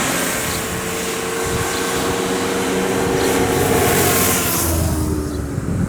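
Motorcycle engine running steadily under way, with wind noise across the microphone; the engine is a Yamaha MT-09 Tracer's three-cylinder.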